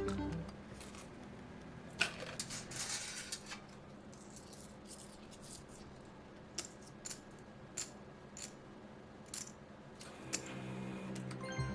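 Casino ambience without voices: scattered sharp clicks and small metallic clinks, with a brief rattling clatter about two to three seconds in. Electronic melodic tones fade out at the start and come back near the end.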